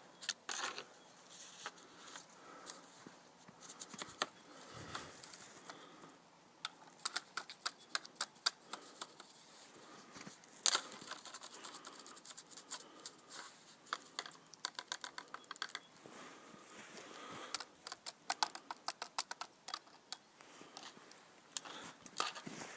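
Snow crunching and crackling in quick runs of short, crisp clicks, several a second, with pauses between the runs.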